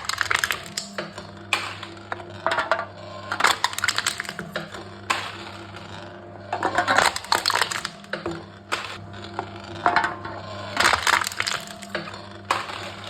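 Aluminium cans being crushed one after another by a crushing machine: bursts of crackling, crinkling metal every second or two over a steady low machine hum.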